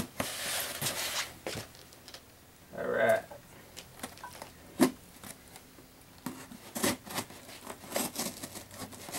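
A pocket knife slitting the packing tape along the seams of a cardboard box: a tearing rasp in the first second and a half, then short scrapes and small knocks as the blade works along the box.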